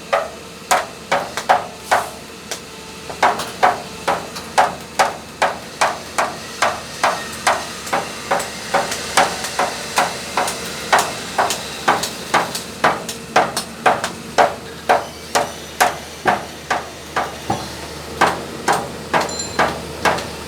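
A hammer striking repeatedly in a steady rhythm, about two to three blows a second, each blow ringing briefly.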